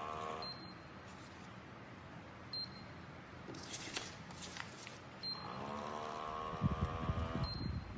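Small pump motor of an automatic foam soap dispenser whirring as it pushes out foam. The whine stops about half a second in and starts again about five seconds in, rising in pitch as it spins up and running for about two and a half seconds, with low thumps near its end. A few clicks and rustles come in between.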